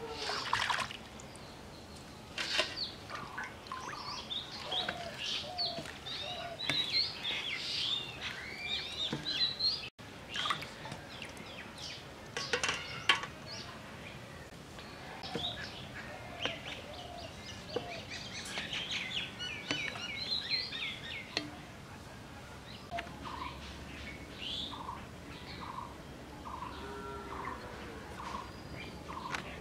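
Small birds chirping and singing: many quick, high chirps and short sliding calls. Near the end, a few lower notes are repeated evenly.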